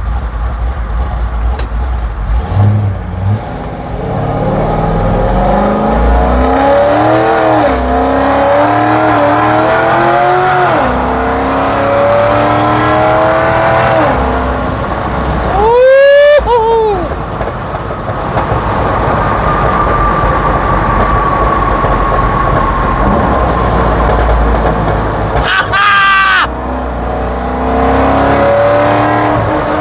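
Heard from inside the cabin, a C6 Corvette's built V8 with a stage 4 custom camshaft, headers and a loud full exhaust climbs in pitch several times as the car accelerates through the gears, with a steadier cruising drone in between. Two short, loud rev spikes come a little past halfway and near the end.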